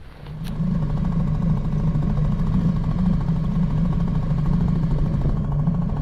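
Small outboard motor running steadily at low speed, a constant drone with a fine even pulse, setting in about a third of a second in.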